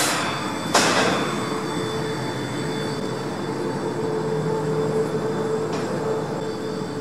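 Rooftop air conditioning plant running: a steady mechanical drone with a held mid-pitched hum and a faint high whine. Two short rushes of hiss break in within the first second.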